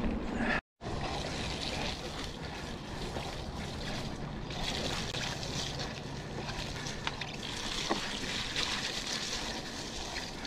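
Mountain bike rolling along a wet, muddy dirt track: a steady rush of tyres through mud and puddles with wind noise on the camera microphone and a few faint rattles from the bike. The sound cuts out completely for a moment just under a second in.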